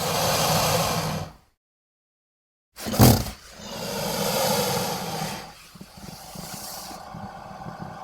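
Made-up Dimetrodon roar sound effects: one roar cuts off abruptly into dead silence, then after a sharp hit a second roar rises and fades, trailing into a quieter, lower rumble.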